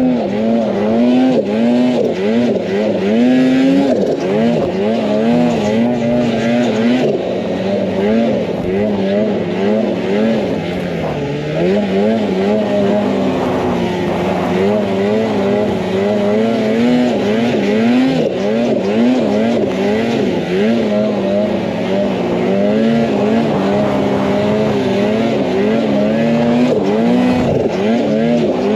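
Snowmobile engine running under load, its pitch constantly rising and falling as the throttle is opened and eased off.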